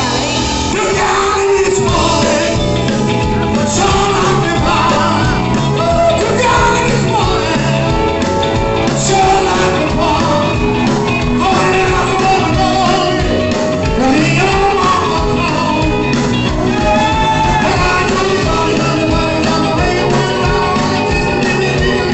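Rock song playing over a hall's sound system, with a singer's voice and a steady driving beat.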